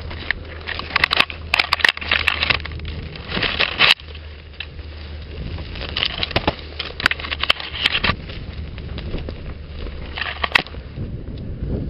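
Brambles, grass and dry twigs brushing, crackling and snapping against the camera as it pushes through dense undergrowth. The rustling comes in bursts of sharp crackles about a second in, around four seconds in, from six to eight seconds, and again near the end, over a steady low rumble.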